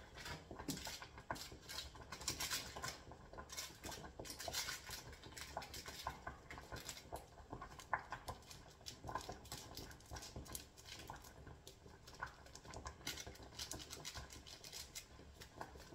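Crinkling and rustling of a small plastic sachet of dried vegetables being opened and shaken out over a pot, a dense run of irregular small clicks and crackles.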